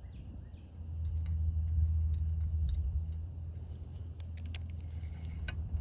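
Scattered light clicks and rattles over a steady low rumble, starting about a second in.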